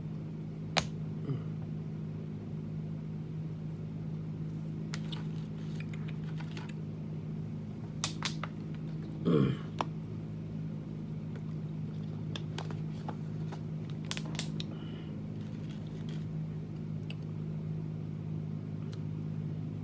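A steady low machine hum, with scattered clicks and plastic crinkles from a new hot-sauce bottle being opened and its plastic seal pulled off and handled.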